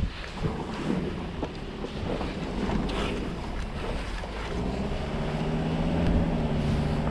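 A car driving on a wet mountain road: wind rushing over the microphone over the low rumble of tyres and engine. About halfway through, a steady engine hum comes up under the wind.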